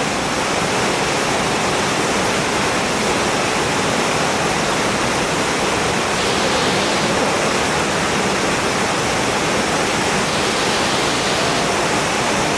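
Waterfall rushing steadily: a dense, even noise of falling water with no breaks.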